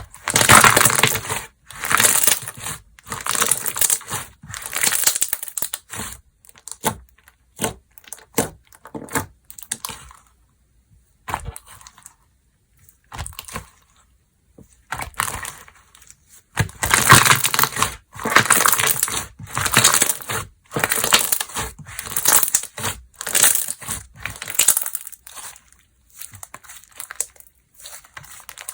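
Slime being squeezed, pressed and stretched by hand, making repeated bursts of squishy, crackly noise about a second long with short pauses between. It is loudest in the first few seconds and again past the middle.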